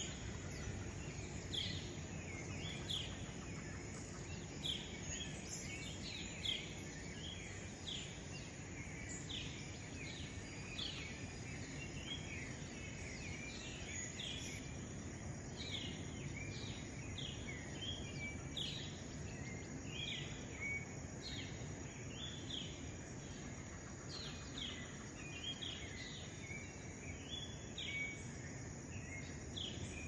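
Rainforest chorus: many birds calling at once, short sharp calls that sweep downward, one after another without pause, over a steady background hiss and a thin, steady high-pitched drone.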